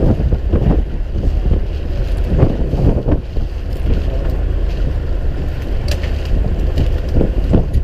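Wind buffeting the microphone aboard a fishing boat at sea, over a steady low rumble and rushing water, with a couple of light ticks near the end.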